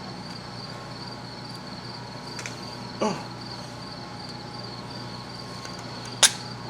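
Steady, high insect-like chirring in the background, with a brief short sound about three seconds in and one sharp click shortly before the end.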